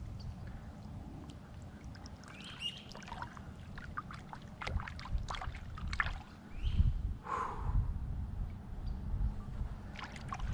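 Shallow pond water splashing and sloshing around a hand holding a large bass at the bank as the fish is let go, with scattered small splashes and a few low rumbles of water movement about two-thirds of the way through.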